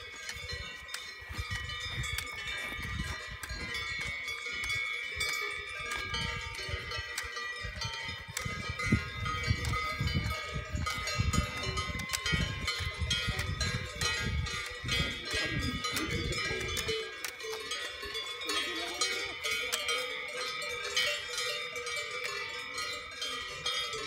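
Swiss cow bells worn by a grazing herd of brown cows, many bells clanking and ringing together in an irregular, overlapping jangle as the cows move and graze. A low rumble sits under the bells until about two-thirds of the way through.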